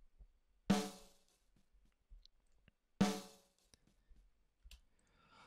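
Recorded snare drum track played solo through its mix chain ending in an L1 limiter: two single snare hits, the first under a second in and the second about two seconds later, each ringing out briefly.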